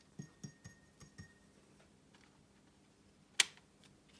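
Watercolour brush knocking against a glass water jar while being rinsed: a ringing glass tone fading, with several light taps over the first second or so, then one sharp click about three and a half seconds in.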